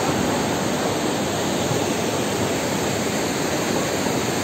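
Fast-flowing mountain river rushing through rapids and pouring over rocks as white water, a steady, loud rush of water.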